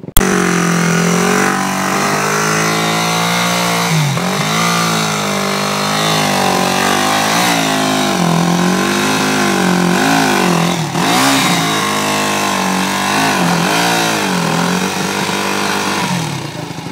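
Yamaha WR enduro motorcycle engine revved in repeated surges, the revs rising and falling over and over with a sharp dip about eleven seconds in, as the bike is forced up a steep rocky step.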